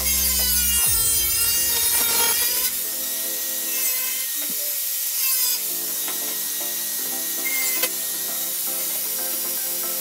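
Angle grinder with a cut-off disc cutting through the sheet-metal side of a perforated cable tray: a high, wavering whine and hiss for the first couple of seconds, then a shorter cut about five seconds in.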